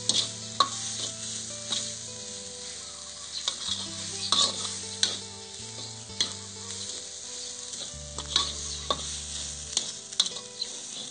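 Minced quail and holy basil stir-frying in a wok: oil sizzling steadily while a metal spatula scrapes and clacks against the pan at irregular intervals.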